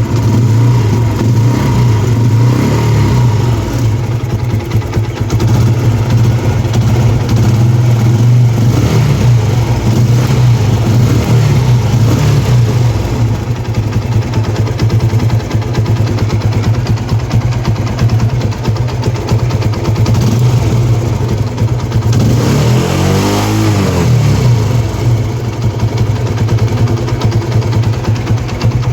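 TVS Apache RTR 160's single-cylinder engine idling steadily, with one brief rev about three-quarters of the way through. A new timing chain tensioner has just been fitted, and the owner hears the earlier tick-tick noise as gone.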